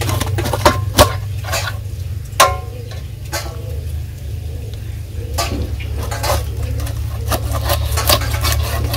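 Raw chicken being cut apart on a boti, a curved blade fixed upright on a wooden base, giving scattered sharp clicks and knocks as the blade bites through bone and pieces land in a stainless-steel bowl. The loudest knocks come about a second in and again near two and a half seconds, with a quicker run of clicks in the second half, over a steady low hum.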